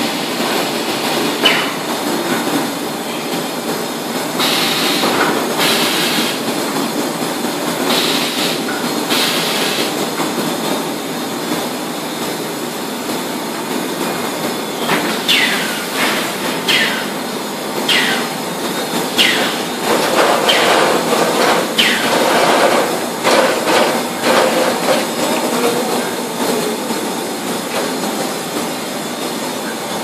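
A 25 kg resin bagging and vacuum-packing line running: steady conveyor and machine noise, with short hissing bursts and then a run of falling squeals.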